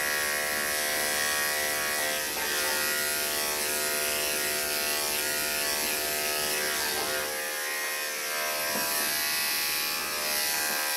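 Electric dog grooming clippers running with a steady buzz while clipping a dog's coat.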